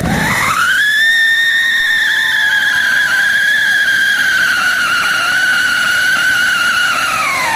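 A whistling ground fountain firework spraying a column of sparks: a loud, shrill whistle that rises quickly as it lights, holds steady while slowly sinking in pitch, and drops away as it dies out near the end, over a hiss of burning.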